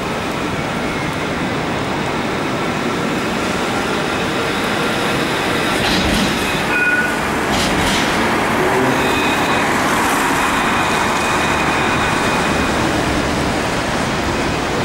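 Low-floor articulated tram running past close by on wet street track, with a few sharp clicks and clacks about six to eight seconds in and faint thin high tones. Steady hiss of wet-road traffic underneath.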